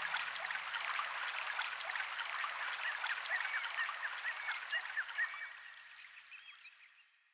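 End of an ambient soundtrack cue: many short squeaky animal-like calls over a steady rushing, stream-like hiss, fading out to silence over the last two seconds.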